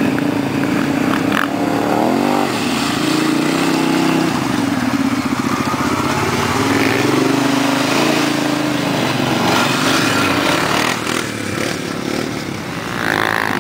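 Quad bike (ATV) engines, among them a Kawasaki ATV, running and revving on a dirt track, the pitch rising and falling as the throttle is worked.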